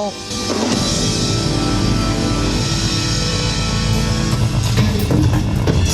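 Loud rock music with electric guitar over a heavy, sustained bass.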